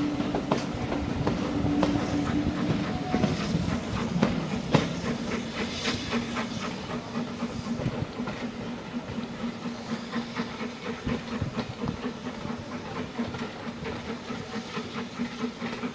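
Heritage steam train's coaches rolling along the track, wheels clicking over the rail joints, with a steady low drone underneath; the sound slowly fades as the train draws away.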